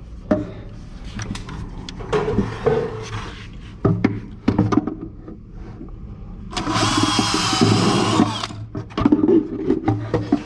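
Power drill with a countersink bit boring a countersunk pilot hole into a wooden cabinet cleat, running for about two seconds starting around six and a half seconds in. Scattered knocks and clatter from handling the drill and workpiece come before and after.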